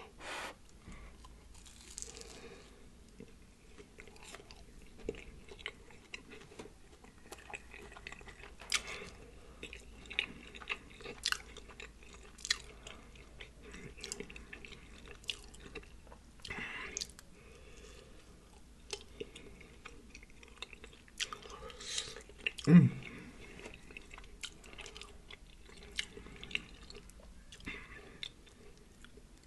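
Close-miked chewing and smacking of a person eating an air-fried birria-and-cheese pupusa, with scattered crisp clicks and wet mouth sounds. A brief loud low-pitched sound about three-quarters of the way through.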